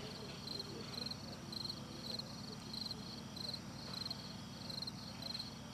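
Cricket chirping in an even rhythm, about three high chirps a second, over a faint low hum.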